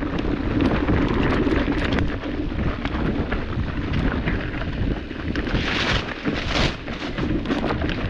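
Wind buffeting the microphone over a steady rumble with frequent rattles and knocks: an electric mountain bike rolling down a rocky trail. A louder hissing rush passes for about a second just past the middle.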